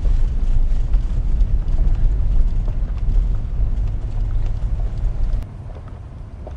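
Vehicle rolling slowly along a gravel road: a low rumble with scattered small ticks of gravel under the tyres. The rumble drops off sharply about five and a half seconds in.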